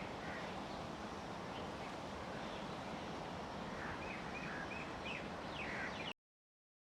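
Steady outdoor background hiss with a run of short, high chirps from a small animal starting about four seconds in and a few quick falling chirps just after, then the sound cuts off abruptly.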